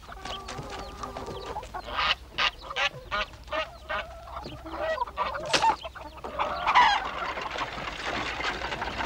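Domestic geese and chickens calling: a run of short, sharp calls a couple of seconds in, and another longer call near the end.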